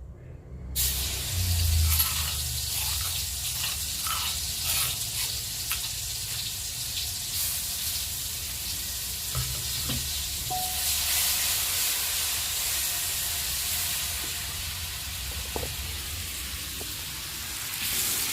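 Ground spice paste frying in hot oil in a pan: a steady sizzle that starts suddenly about a second in, with a few short knocks of stirring.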